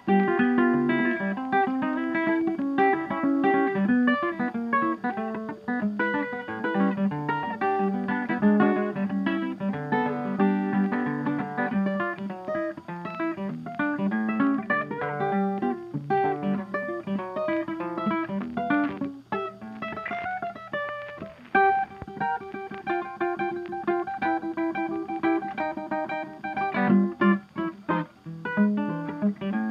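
Background music of plucked guitar playing a steady run of notes.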